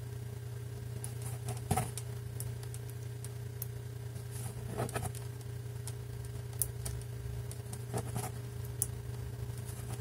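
Scattered small clicks as the number wheels of a Masterlock 651 brass combination padlock are turned one at a time and the shackle is tried, over a steady low hum.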